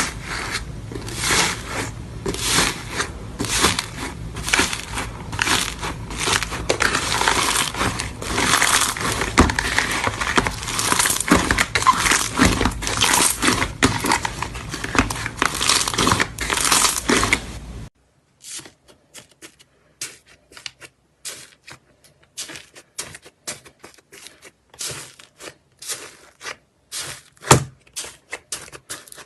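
Slime being squeezed and pressed, giving a dense run of crackling pops. About two-thirds of the way through it cuts to a quieter clip of sparser sharp clicks and pops.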